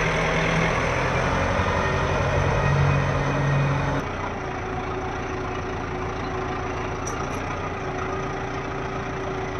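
Kubota 4WD tractor's diesel engine running steadily with the tractor bogged down, its rear wheels sunk in wet mud. The sound drops a little about four seconds in.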